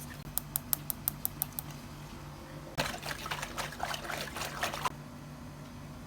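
A quick run of about seven sharp high clicks, then about two seconds of water splashing and trickling.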